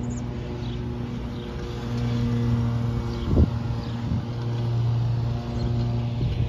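Lawn mower engine running steadily at an even pitch, with wind rumbling on the microphone and a single knock about halfway through.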